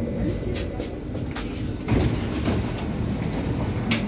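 Inside a BVG class H U-Bahn car as the train stops at a station: low running rumble with knocks and clunks, a loud one about two seconds in. The passenger doors slide open near the end.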